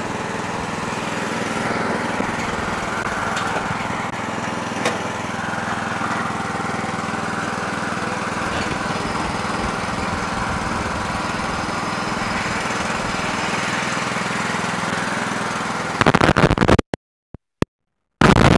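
Riding lawn tractor engine running steadily at a constant speed while the Yard Machines tractor is driven across the driveway. Near the end the sound breaks into a few loud crackles with brief cut-outs.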